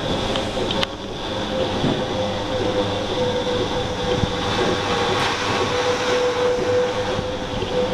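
Lely Astronaut A3 Next milking robot running while its rotating brushes clean a cow's teats: a steady machine hum with a constant whine and a few light clicks.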